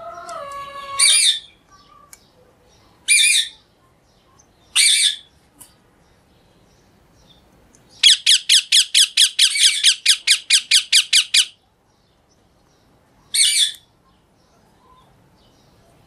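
Green parakeets screeching: three single harsh screeches a couple of seconds apart, then a rapid even run of about fourteen screeches at roughly four a second, and one last screech near the end.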